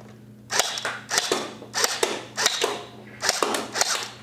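Electric gel blaster pistol firing on full auto: three short bursts, each a quick string of sharp cracks, about a second apart.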